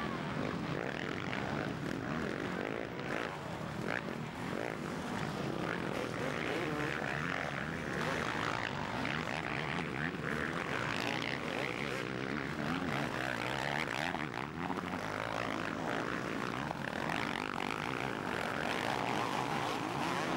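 Motocross motorcycle engines revving hard, their pitch rising and falling continuously as the bikes climb ruts and take jumps.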